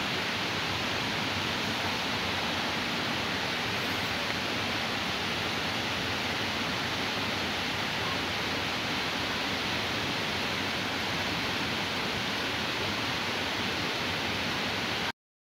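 Running stream water: a steady, even rush that cuts off suddenly near the end.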